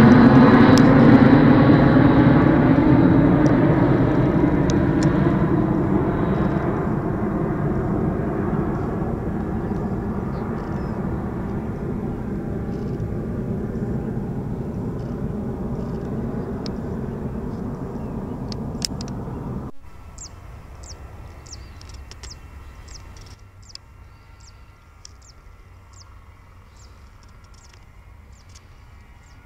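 Eurowings Airbus A320-214's CFM56 jet engines at takeoff power, loud at first and fading steadily as the jet rolls away down the runway. About twenty seconds in, the sound cuts abruptly to a much quieter steady jet engine hum, with short high chirps above it.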